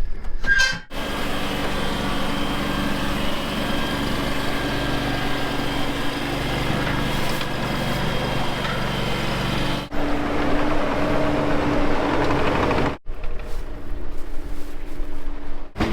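Engine of a work vehicle or machine running steadily, cut off abruptly and picking up again several times.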